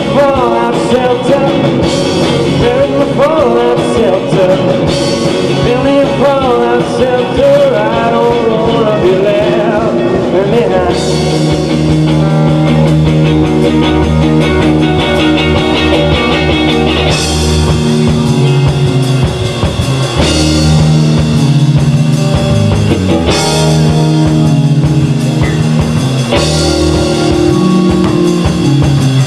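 Live rock band playing loud: electric guitars over a drum kit, with bending lead notes in the first part.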